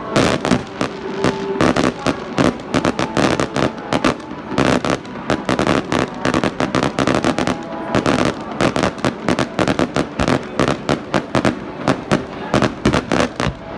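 Fireworks display: a rapid, continuous barrage of aerial shells bursting, several sharp bangs a second with crackling between them.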